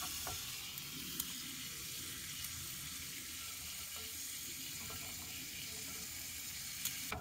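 Sliced double smoked sausage sizzling steadily in a frying pan over a small wood-burning camp stove, with a few faint clicks.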